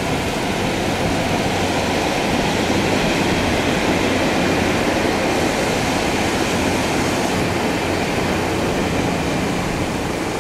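A passenger train running past on the rails, over the steady churning splash of paddlewheel aerators in a fish pond. The sound grows a little louder through the middle, then eases off.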